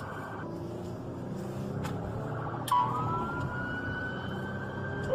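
Police car siren: a fast pulsing tone cuts off about half a second in, then after a click a wail starts and rises slowly in pitch. Steady road and engine noise underneath, heard from inside a pursuing patrol car.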